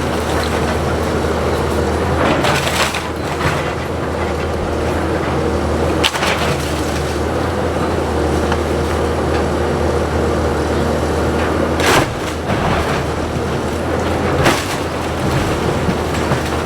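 Heavy demolition machinery running steadily while a wooden house is torn apart, with several loud cracks and splintering of timber breaking.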